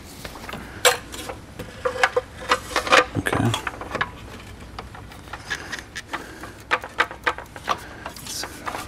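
Irregular clicks, taps and rubbing of intake parts as the Dinan snorkel is fitted to the airbox. The sounds come thickest in the first few seconds and thin out after.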